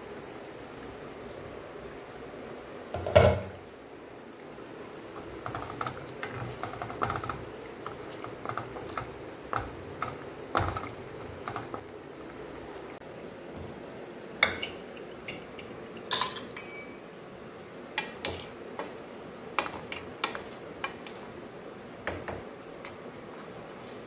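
Steel spoon knocking and scraping against stainless steel cookware: one loud metal clatter about three seconds in, then a string of short taps and scrapes. Faint bubbling of simmering tamarind paste runs underneath.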